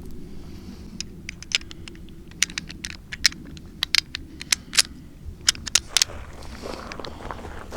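A run of small, sharp clicks and ticks at irregular intervals, over a low steady background.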